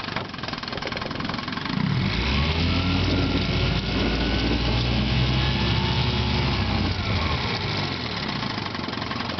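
1958 Johnson 5.5 hp two-cylinder two-stroke outboard motor running in reverse gear. It speeds up and gets louder about two seconds in, then eases back down near the end.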